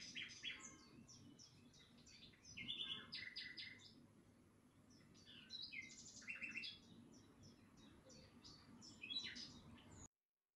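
Faint bird chirping and twittering: runs of short, high notes with quick trills, coming in bursts every few seconds. It cuts out abruptly just before the end.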